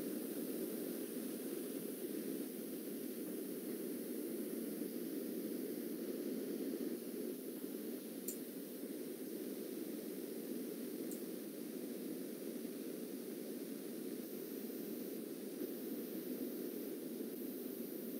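Steady low hiss of background noise on a video-call audio line, with no speech. Two faint ticks come about 8 and 11 seconds in.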